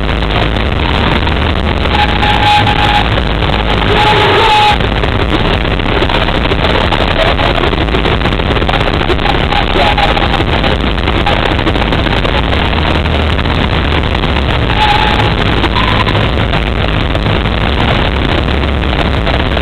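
Live pop-rock band playing with a crowd cheering and screaming, recorded from within the audience so loud that it comes through as a dense, distorted, muddy wash with a heavy low end.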